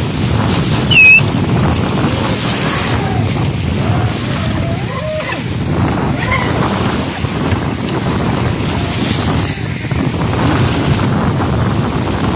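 Wind buffeting the microphone over small waves at the shore, with a radio-controlled speedboat running fast out on the water. A short, loud, high squeal comes about a second in.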